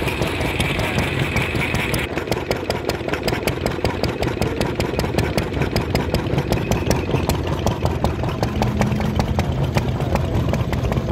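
Vintage single-cylinder stationary engine with a Solex carburettor running steadily, its firing beats sharp and even.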